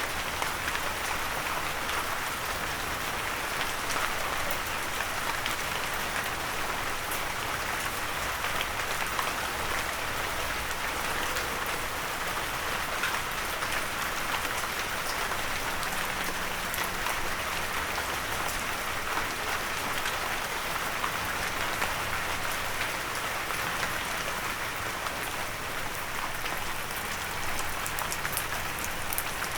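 Steady rain falling, with many individual raindrops ticking on a surface.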